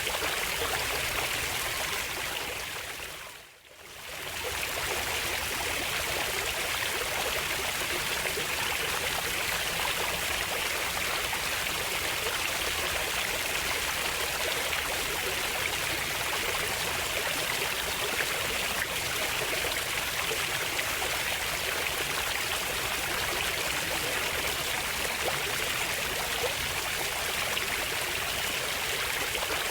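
Running water of a stream, a steady rushing flow. It fades down briefly about three and a half seconds in, then comes back up.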